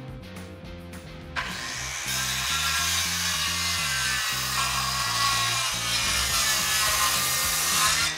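Makita circular saw starting up about a second in and cutting steadily through a sheet of MDF, then stopping near the end. Background music plays underneath.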